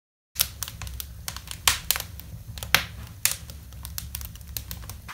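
Wood fire crackling and popping in a clay fireplace: irregular sharp pops, a few much louder than the rest, over a low steady rumble of the flames.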